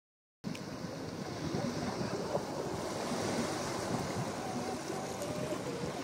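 Small waves washing in and breaking among shoreline rocks in a steady wash, starting abruptly about half a second in.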